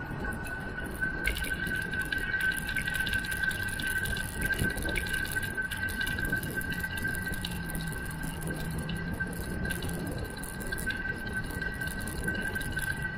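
Riding noise from a moving bicycle on a paved path: rushing wind on the microphone and tyre noise, with traffic on the road alongside and a steady high-pitched whine.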